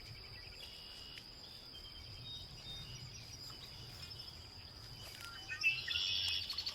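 Pond-side morning ambience: insects hold one steady high buzz, while birds chirp in short phrases that grow busier and louder near the end.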